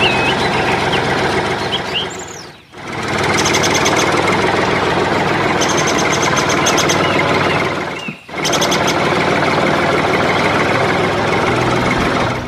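Small battery-powered electric motor of a toy tractor-and-trolley model running with a steady whir, cutting out briefly twice, about two and a half seconds in and again about eight seconds in.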